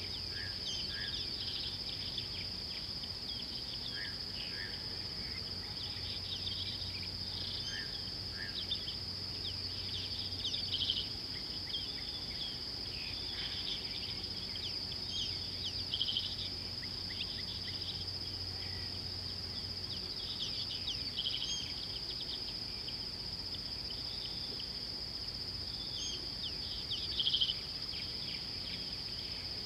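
Outdoor bush ambience: a steady high-pitched insect drone with many scattered bird chirps and trills, a few louder bird calls about 11, 16 and 27 seconds in.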